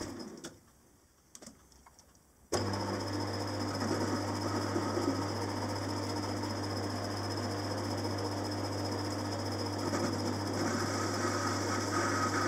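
Metalworking lathe running with a steady hum as it turns a cast model-engine flywheel. The sound drops almost to silence for about two seconds just after the start, then the hum returns abruptly. A higher tone joins in near the end.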